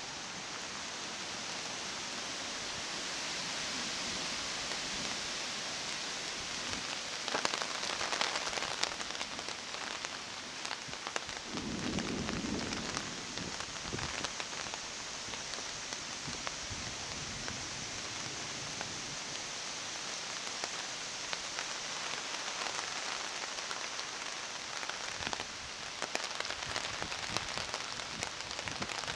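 Steady rain falling, a constant hiss with scattered louder drops, and a brief low rumble about twelve seconds in.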